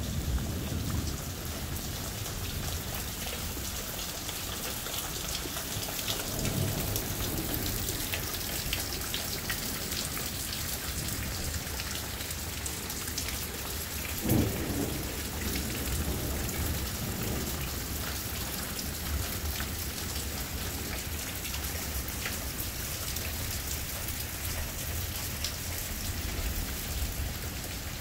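Heavy rain pouring steadily, with thunder rumbling low near the start and again about six seconds in, and a sharper, louder thunderclap about halfway through that trails off into rumbling.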